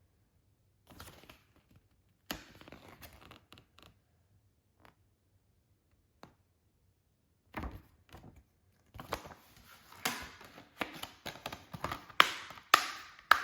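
Packaging being handled during an unboxing: scattered taps and rustles at first, then a quicker run of clicks, snaps and rustling in the last few seconds, with the sharpest snaps near the end.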